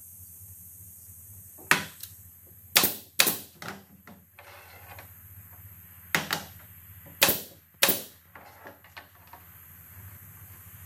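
Loose wooden pieces knocking and clacking against the wooden frame as they are set into place by hand: about six sharp knocks at uneven intervals, over a low steady workshop hum.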